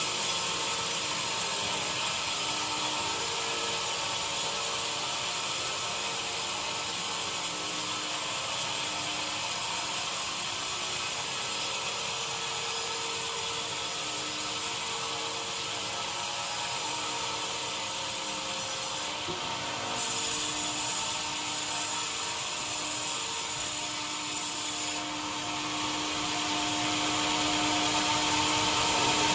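Sawmill machinery running steadily as a saw cuts through wood, a continuous grinding noise over a steady machine hum.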